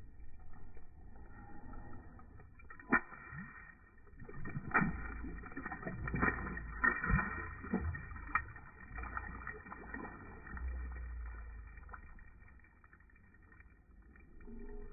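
Water splashing and sloshing in an ice-fishing hole as a bass is released by hand, with a few sharp knocks in the middle and a low rumble underneath.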